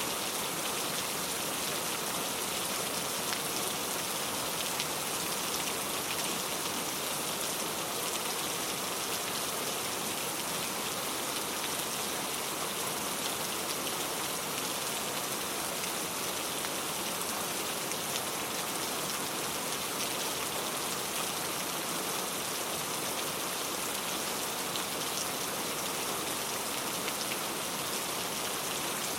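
Steady rain falling on a surface, a dense even hiss with fine scattered drop patter.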